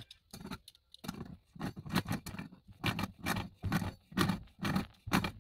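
Channel-lock pliers tightening the PEX fitting on a brass well-tank tee in short turns: the jaws clack and scrape on the fitting about twice a second as they are worked back and forth and re-gripped.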